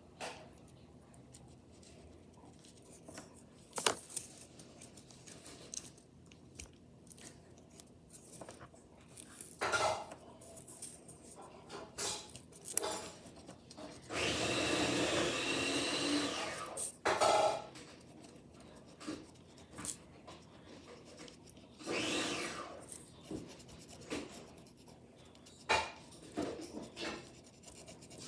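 Handling noises on a tabletop: scattered taps, clicks and rubbing. In the middle there is a louder, steady rushing noise that lasts about two and a half seconds.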